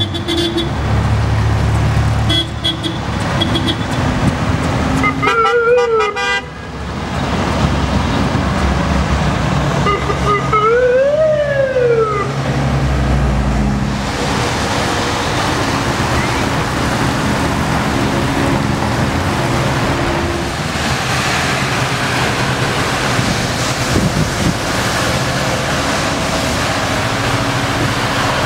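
Road traffic on a wet road, cars and heavier vehicles passing with engine noise and tyre hiss. A police siren sounds twice: a fast warble about five seconds in, then a single slow rise and fall about eleven seconds in. Steady traffic noise follows.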